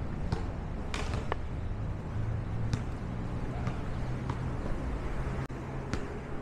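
City street ambience: a steady low hum of traffic with sharp clicks and taps scattered at irregular intervals.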